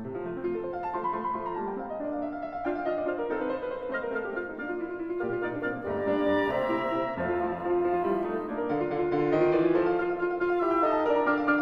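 Instrumental background music led by piano, with a melody moving note by note.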